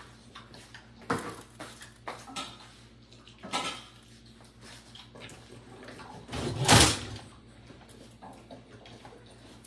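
Rummaging through a kitchen utensil drawer: scattered knocks and clinks of utensils and drawer handling, with one louder rattle about two-thirds of the way through.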